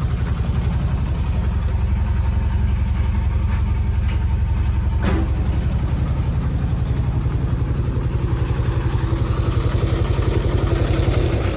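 Kubota ER211 combine harvester's engine running steadily, then cutting off right at the end.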